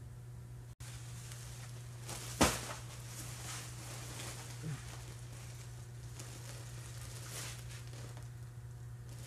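Steady low hum under faint rustling, with one sharp click about two and a half seconds in.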